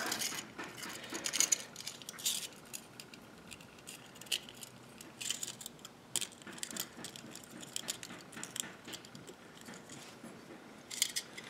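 Small, scattered metallic clicks and light scrapes as a thin pick works inside the float valve seat bore of a Walbro WF-7 carburetor to free a tiny brass gasket, with the metal carburetor body clinking now and then as it is turned in the hands.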